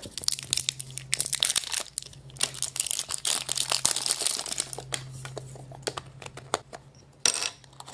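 Foil wrapper of a chocolate surprise egg crinkling and tearing as it is unwrapped by hand, a dense run of crackles that thins out in the second half. A faint steady low hum runs underneath.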